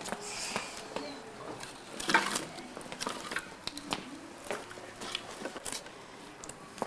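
Faint, indistinct voices with scattered small knocks and clicks; the loudest moment is about two seconds in.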